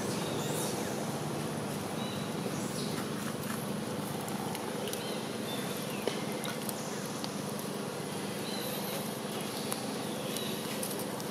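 Outdoor woodland ambience: a steady insect drone with a few short, high bird chirps and a couple of sharp ticks.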